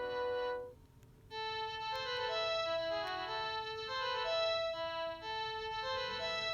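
Panasonic KX-TGA106 cordless phone handset playing its built-in ringtones through its small speaker: one electronic melody cuts off about a second in, and after a brief pause the next ringtone starts, a synthesized tune of held notes, several sounding at once.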